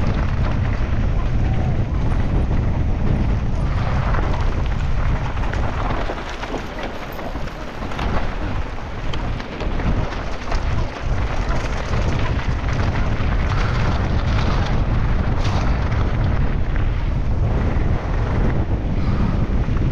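Wind rushing over the microphone during a fast mountain-bike descent: a continuous loud low rumble with the clatter and knocks of the bike over rough ground. The wind rush drops for a few seconds about six seconds in, letting sharper knocks stand out, then builds again.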